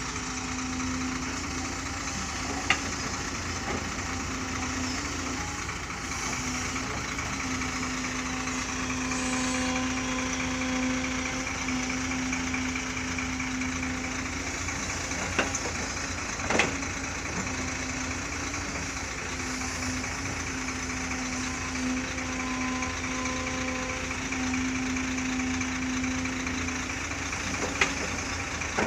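A motor running steadily with a constant hum, with a few sharp knocks scattered through it.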